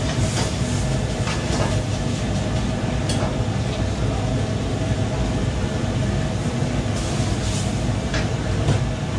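Commercial gas wok range and extractor hood running with a loud steady rush and a low hum, with a few short clanks and scrapes of a steel wok being worked over the flame.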